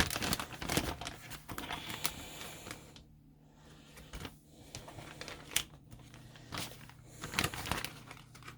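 Plastic zipper storage bag being handled and opened, crinkling and rustling: dense for the first three seconds, then scattered crackles.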